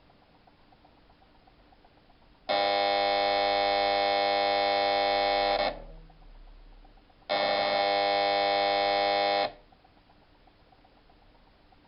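Electric door buzzer sounding twice: a steady buzz of about three seconds, then after a short gap a second buzz of about two seconds, each starting and stopping abruptly.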